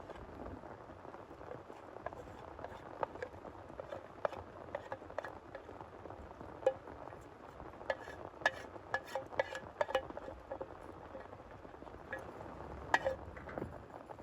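Steady hiss of heavy rain with irregular sharp clinks and taps over it, thickest in the second half.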